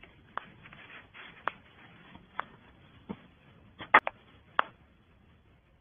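A handful of short, sharp knocks at irregular intervals over faint background noise, the loudest a quick double knock about four seconds in.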